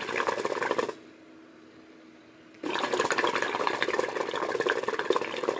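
Hookah water base bubbling hard as smoke is drawn through the hose. One draw ends about a second in, and a second draw starts after a short pause and runs on.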